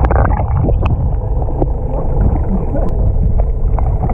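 Muffled underwater ambience picked up by a submerged camera: a steady low rumble of water, with scattered sharp clicks and crackles.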